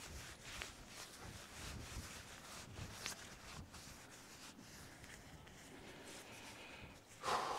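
Faint rustling and crinkling of tent fabric being handled and folded, with scattered soft clicks and a louder rustle near the end.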